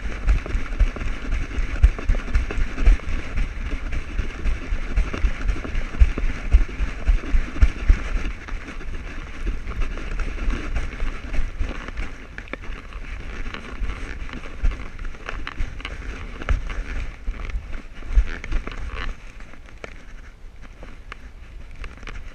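Rapid, irregular thumping and rubbing of an action camera jolting on the back of a running husky-shepherd mix, with paws scuffing over desert gravel and wind on the microphone. The thumping eases about three seconds before the end.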